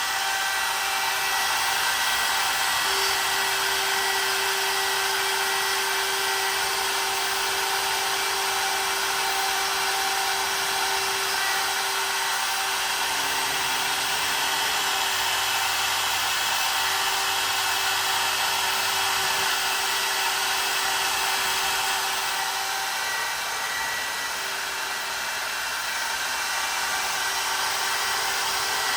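CNC router's spindle motor running steadily with a high, even whine and a steady hum that drops out now and then; the level dips a little near the end.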